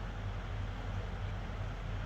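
Panasonic F-MX405 stand fan running with a steady low hum over the rush of its airflow. This is the abnormal noise of a faulty fan, one that grows over time and goes away for a while when the oscillating clutch knob is worked.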